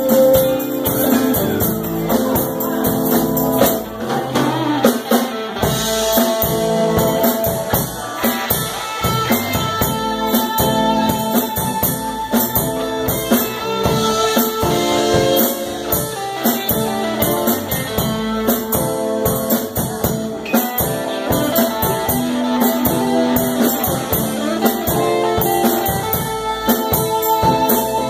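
Live rock band playing an instrumental passage: electric guitars and bass guitar over drums, with a steady beat.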